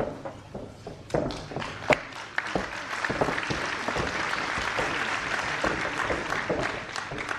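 Audience applauding: a few scattered claps at first, building to steady applause about three seconds in, then thinning near the end.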